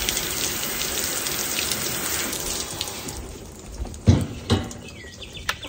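Heavy spray of water, simulated heavy rain, pelting a camping lantern and a metal patio table in a water-resistance test, fading out about halfway through. Then two dull knocks, and a bird starts chirping rapidly near the end.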